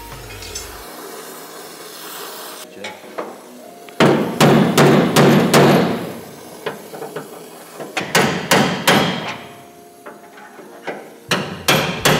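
Hammer blows on the steel of a Toyota AE86's bent front chassis leg as it is tapped straight: three bursts of quick strikes from about four seconds in, each lasting a second or two.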